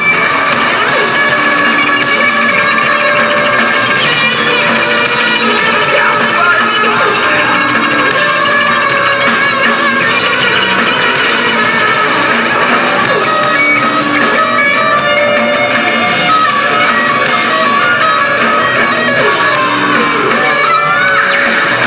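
Music with guitar, running steadily throughout.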